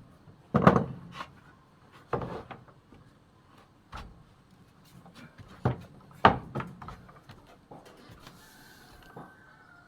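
Wooden window-frame pieces being handled after a mortise-and-tenon test fit: a handful of irregular knocks and thuds of wood on wood, with some rubbing in between.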